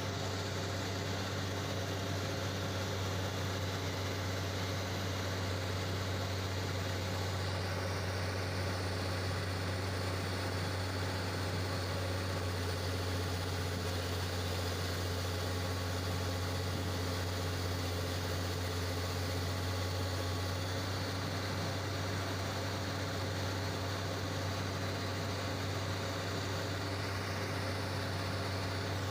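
Diesel engine of a hydraulic excavator running steadily with a constant low hum, without revving up or down.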